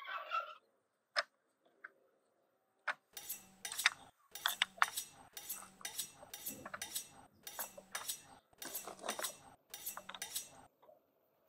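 Hollow tube-shaped charcoal briquettes placed one by one onto a pile of others, each landing with a hard, glassy clink, about two a second for several seconds after a few scattered knocks.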